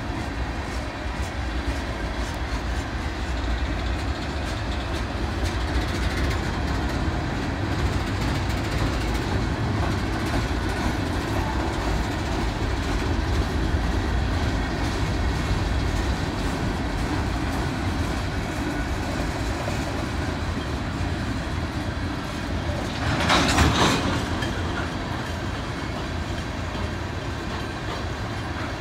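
Freight train of tank cars, hoppers and boxcars rolling steadily over a stone-arch railroad viaduct: a continuous low rumble of wheels on rail. About two-thirds of the way through, a brief louder burst of noise lasts about a second.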